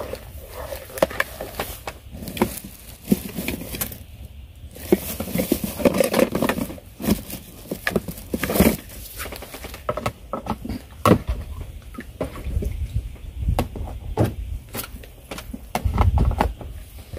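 Hands mixing and kneading carp paste bait in a plastic bowl: irregular soft pats, squeezes and clicks, with a low rumble near the end.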